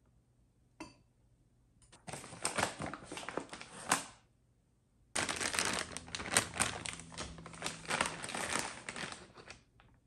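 Clear plastic bag of oat flour crinkling as it is handled, in two spells of crackly rustling, the second longer. A single light click comes about a second in.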